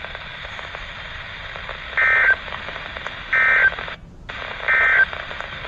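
Emergency Alert System SAME data bursts from a NOAA Weather Radio broadcast: three short, identical buzzy digital screeches about a second apart, the end-of-message code that closes an alert. They sound over a steady radio hiss.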